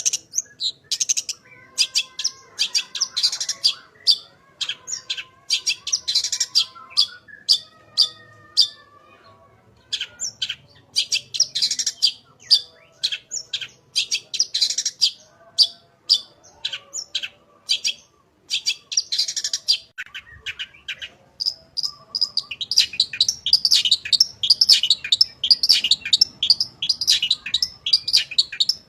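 Long-tailed shrike (cendet) singing a varied song full of mimicked phrases: rapid runs of sharp, high chips and trills, with softer warbled notes below them in the first part. About two-thirds of the way in, the chatter becomes dense and nearly continuous.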